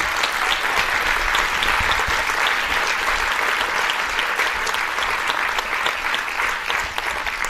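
Audience applauding: many hands clapping steadily, easing off a little near the end.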